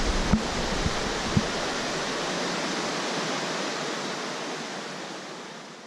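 Waterfall rushing: a steady, dense roar of falling water, with a few low thumps in the first second and a half. It fades out near the end.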